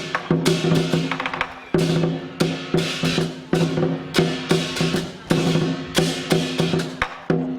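Lion dance percussion: a drum beaten in a brisk, driving rhythm with cymbals crashing on the beats and a gong ringing beneath them.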